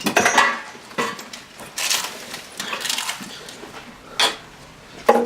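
Knocks, bumps and scrapes of a microphone being handled and passed over, with a sharp knock about four seconds in.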